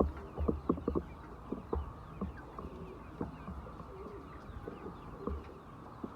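Chickens clucking: short sounds come thick and fast in the first second, then thin out, with faint high chirps over them.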